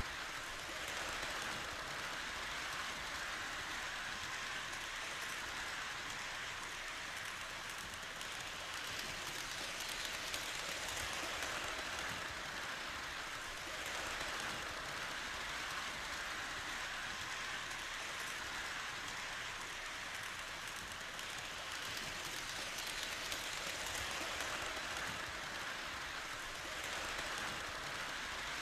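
O-scale three-rail model trains running, pulled by Industrial Rail 4-4-2 steam locomotives: a steady rolling hiss from the wheels on the track and the motors, holding an even level throughout.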